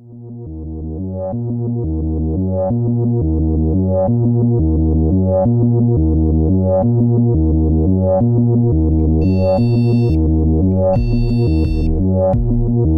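Electronic synthesizer music with a steady repeating bass-and-chord pattern, fading in at the start. Two held high tones sound briefly, near the end.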